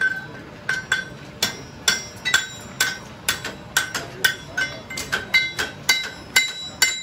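Farrier's hammer striking a steel horseshoe in a steady run of ringing metal blows, about three a second.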